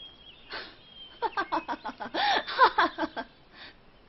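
A woman laughing: a quick run of short voiced "ha" pulses lasting about two seconds, starting about a second in and loudest in the middle.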